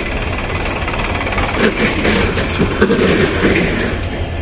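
Steady low rumble of diesel engines, from a farm tractor pulling a trolley close by and a diesel locomotive standing at the platform.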